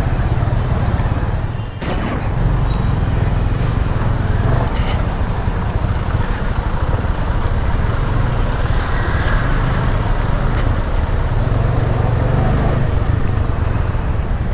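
Single-cylinder engine of a TVS Apache RTR 200 motorcycle running steadily at low speed in slow traffic, with road noise around it. The sound dips briefly about two seconds in.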